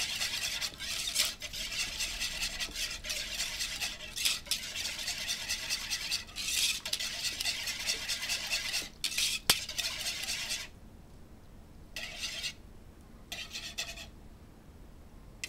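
Metal wire balloon whisk beating a thin liquid glaze of pineapple juice and brown sugar in a mixing bowl: rapid swishing with the wires clinking against the bowl. It stops about ten and a half seconds in, and two short bursts of whisking follow.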